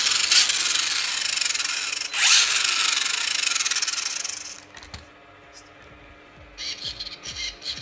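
A hobby RC buggy's electric motor and drivetrain spinning its wheels off the ground, powered by a Traxxas battery through a newly spliced adapter: it runs up twice with a high whine that slides in pitch, stopping about four and a half seconds in. A few short knocks follow near the end.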